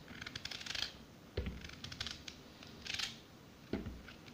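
Small knife slicing through a raw fennel bulb held in the hand: crisp crunching cuts in short runs of clicks, with a couple of duller knocks in between.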